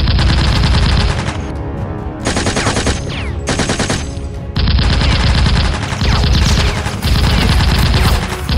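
Machine-gun sound effects firing in about six long, rapid bursts with short gaps between them, laid over a Nerf blaster fight, with background music underneath.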